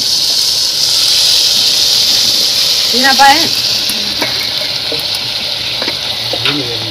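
Raw mutton pieces sizzling in hot mustard oil with fried onion and garlic in an aluminium pot: a steady frying hiss that eases a little after about three seconds, with a few light clicks of meat and pot.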